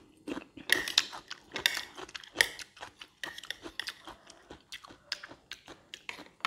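A person chewing a mouthful of fried rice close to a clip-on microphone, with a metal fork and spoon scraping and clicking against a ceramic plate as she stirs and scoops. The sound is a run of short, irregular clicks and crackles.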